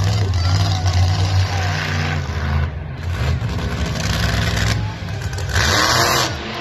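Monster truck engine running loud with a deep rumble, the throttle rising and falling as it drives across the dirt. Near the end comes a short, loud crash as the truck goes up onto a stack of crushed cars.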